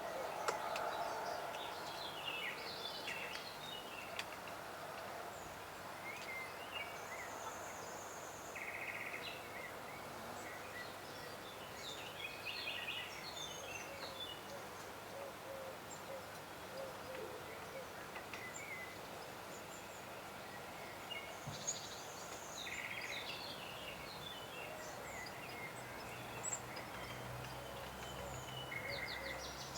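Woodland songbirds chirping and calling, short scattered notes over a steady background hiss of forest ambience.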